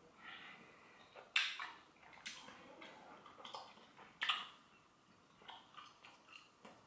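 Wet, irregular clicking and smacking of a mouth chewing a large wad of many pieces of chewing gum at once. Three sharper smacks stand out, about one and a half, two and a half and four seconds in.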